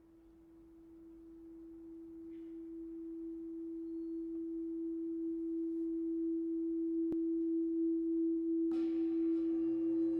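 Opening of an ambient electronic track: a single pure, steady tone fading in slowly, with a short click about seven seconds in. Near the end, more high tones and a low drone join it.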